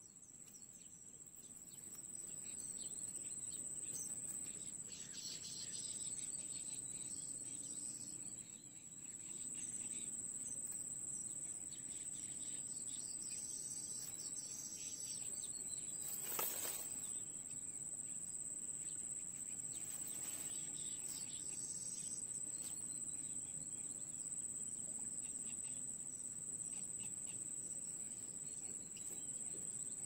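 Steady high-pitched insect drone that runs unbroken, with a few short faint chirps scattered through it and a sharp click near the middle.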